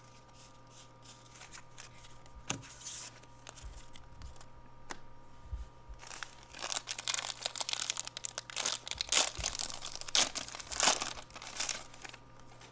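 Wrapper of a 1992 Fleer jumbo baseball card pack being torn open and crinkled, a dense run of crackling through the second half. Before that, a few soft clicks as loose cards are handled.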